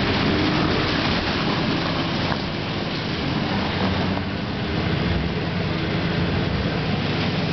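Nissan Patrol GR's 2.8-litre straight-six turbodiesel running steadily under load while its tyres churn through muddy water and broken slabs of ice.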